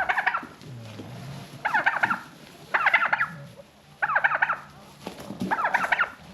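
A domestic hen turkey calling in five short bursts of quick notes, about one burst a second.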